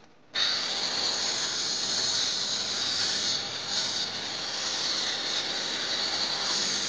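Handheld angle grinder starting up about a third of a second in and then running steadily as its disc cuts a groove into a brick wall, a chase for concealed electrical wiring conduit.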